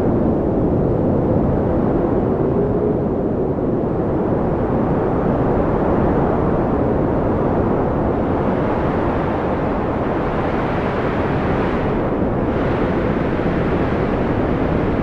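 Blizzard wind blowing hard and steadily as a deep, dense rush, with a faint whistling tone in the first few seconds. A hissier gust builds about two-thirds of the way through.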